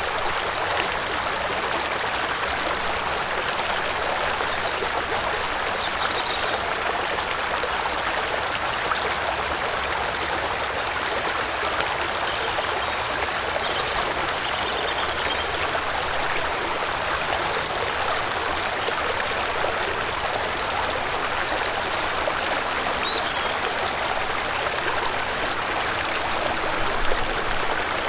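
Steady, even rush of falling or running water, with no thunder.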